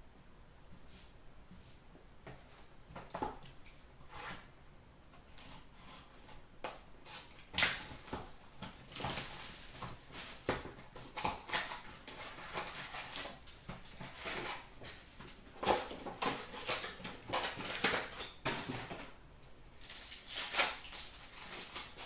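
Cardboard hobby box of trading-card packs being opened and its foil-wrapped packs handled and torn. A few light taps at first, then from about eight seconds in a busy run of crinkling, crackling and sharp clicks.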